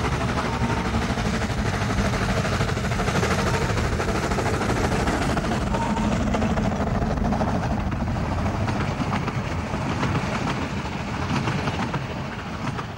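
Vale of Rheidol narrow-gauge 2-6-2 tank steam locomotive working a train away and passing close, with its exhaust and running gear heard, followed by the coaches rolling by. The sound eases off near the end.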